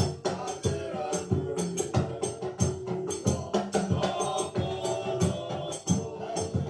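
Gospel music with a steady beat: drums and shakers over a held chord.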